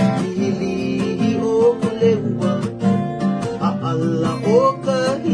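Two acoustic guitars strummed and picked together in a steady rhythm, playing an instrumental passage.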